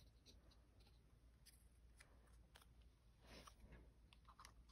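Near silence with faint light ticks and a soft rustle of die-cut cardstock pieces being picked up and set down.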